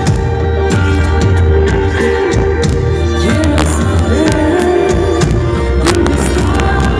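A live band plays loudly through stage speakers: drums, guitar and a woman singing, with a heavy low end.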